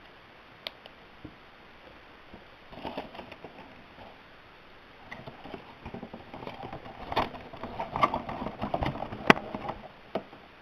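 Hands handling packaging and a small plastic object: irregular rustling and scattered clicks, busier in the second half, with one sharp click near the end.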